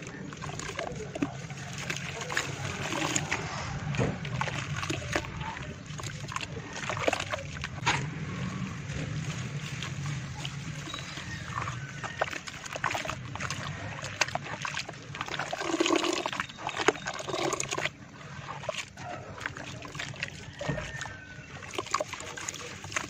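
Hands squishing and sloshing wet red dirt mud in a basin of water, a continuous run of wet squelches and small splashes. Near the end the mud is pressed together into a soft lump.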